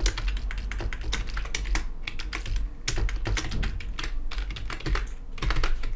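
Fast typing on a computer keyboard: a quick, irregular run of key clicks.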